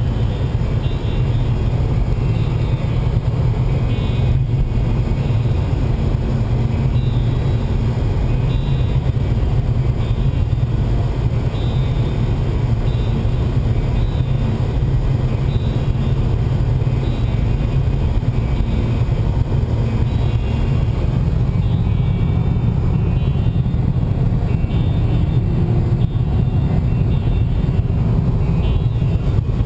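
Car driving at a steady speed, heard from inside the cabin: a steady low engine and road rumble.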